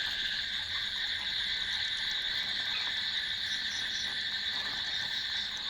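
Dense, steady chorus of calling animals, high-pitched and unbroken.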